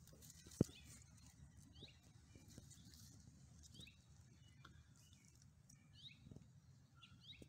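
Faint, scattered bird chirps over quiet outdoor background, with a single sharp click about half a second in.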